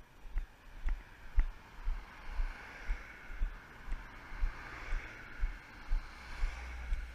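Walking footfalls jolting a body-worn camera, about two a second. Cars drive past close by on a narrow road, their tyre and engine noise swelling to a peak about five seconds in.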